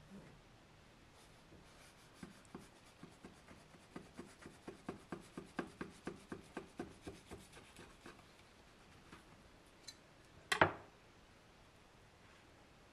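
Kitchen knife sawing back and forth through a loaf of banana cake on a wooden cutting board: a run of short strokes, about five a second, growing louder and then fading. Near the end, one louder knock of the knife on the wooden board.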